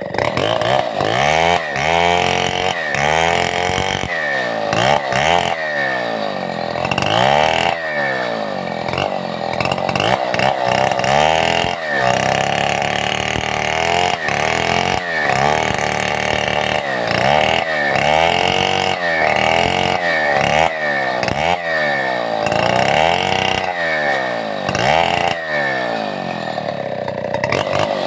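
Stihl 070 two-stroke chainsaw running hard, its engine speed rising and falling over and over, about once a second.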